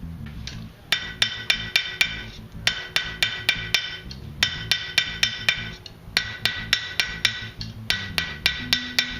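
Blacksmith's hand hammer striking hot iron on an anvil in quick runs of five or six ringing blows, about five a second, with short pauses between runs. The blows are light and bouncing, 'bunny hopping', so the thin piece doesn't stay on the cold anvil long enough to lose its heat.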